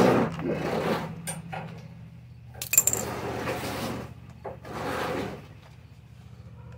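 Hand tools and metal parts clattering and scraping while a part is unbolted from a Honda HR215 lawnmower, with a sharp ringing metal clink about three seconds in. A steady low hum runs underneath.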